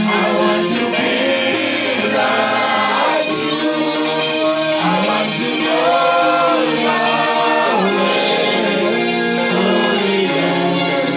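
Gospel worship music: several voices singing long, held notes that slide between pitches, with a steady backing.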